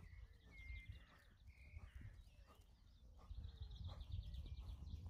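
Faint birdsong in the open: a few short chirps, then a quick trill a little past halfway, over a low steady rumble.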